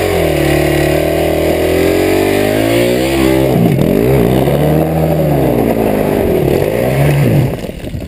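Dirt bike engine revving hard under load as it climbs a steep rocky slope, its pitch rising and falling several times. It fades quickly near the end as the bike pulls away.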